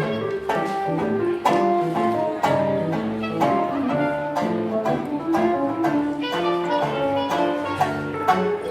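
Live jazz band playing an instrumental passage, with no singing.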